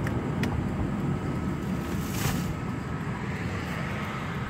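A car being driven: steady low engine and road rumble, with a brief rush of hiss about two seconds in.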